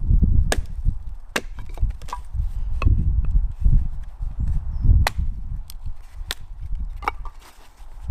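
Sharp, irregular cracks and knocks of wood, about a dozen, over a low rumble.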